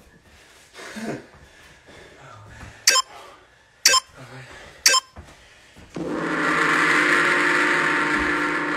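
Countdown timer: three short beeps a second apart, then a long ringing start tone that holds and slowly fades, signalling the start of a push-up set.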